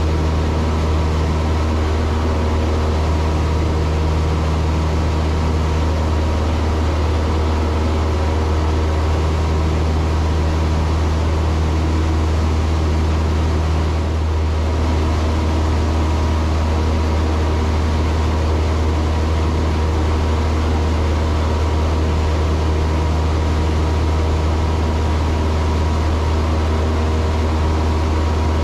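Cessna 162 Skycatcher heard from inside the cabin in flight: its Continental O-200 four-cylinder engine and propeller running steadily as a deep drone, with air rushing past.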